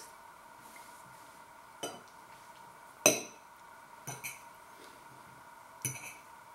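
Metal fork clinking and scraping against a ceramic plate as food is picked up: several short sharp clinks, the loudest about three seconds in.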